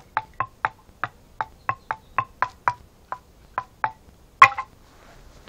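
Wooden knocks: a stick struck repeatedly against wood, about three to four hollow, ringing taps a second. One louder knock comes about four and a half seconds in, and then the tapping stops.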